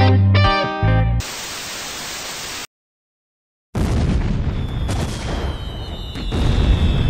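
Distorted electric-guitar music that cuts off about a second in, then a burst of television-style static hiss, a second of silence, and a loud rumbling, crackling noise with a faint falling high whistle.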